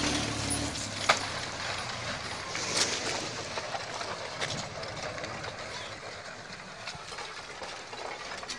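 Landslide of rain-saturated earth and debris sliding down a hillside: a steady rushing rumble, with a few sharp cracks, the loudest about a second in.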